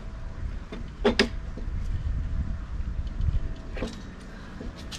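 A few sharp knocks and clicks from the parts of a binocular chair's support arm being handled and set up on its plywood platform: two close together about a second in, and another near the end. Under them runs a low wind rumble on the microphone.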